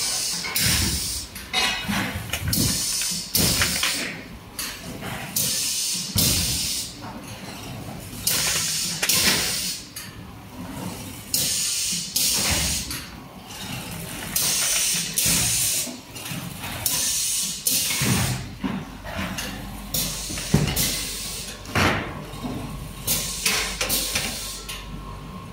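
Packing-line workshop noise: metal conduit bodies knocking and clattering as they are handled, with repeated short bursts of hiss and rustle. A low hum comes in about two-thirds of the way through.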